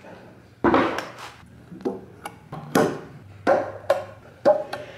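Paint can opener prying the lid off a metal paint can: a series of sharp metallic clicks and pops, some with a short ring, as the lid is levered up bit by bit around the rim.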